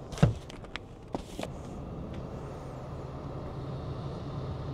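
A large cardboard box set down in a car's rear cargo area with one heavy thump and a few lighter knocks, followed by a steady low hum.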